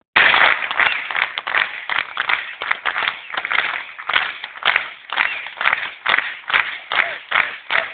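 Ice hockey supporters clapping in unison in a steady rhythm, about three claps a second, as the home team salutes them.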